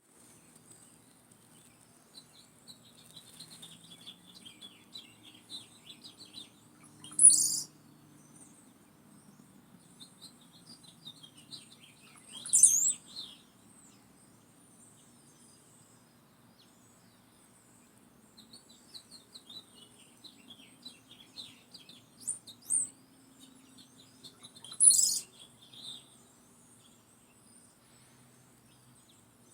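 Several wild songbirds singing: bursts of rapid chattering notes, broken by a few loud, sharp calls.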